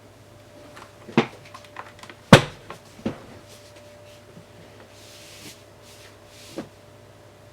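Scattered knocks and clicks of hard objects being handled, the loudest about two seconds in, with a brief rustle later on. It is not a steady run of typing.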